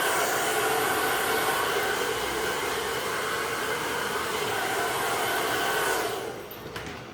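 Hand-held hair dryer blowing steadily with a humming whine, switched off about six seconds in.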